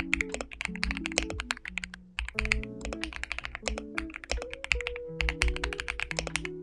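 Fast typing on an AULA F75 mechanical keyboard with linear Ice Vein switches: a rapid, continuous run of keystrokes with a brief pause about two seconds in.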